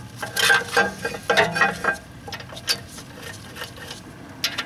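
Clinking and rattling of a steel brake caliper carrier bracket being handled and fitted against the rear hub and rotor, busiest for the first two seconds, then quieter fumbling as its bolts are started by hand.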